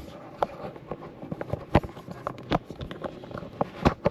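Dishwasher parts being handled and worked loose by hand: a string of irregular sharp clicks and knocks.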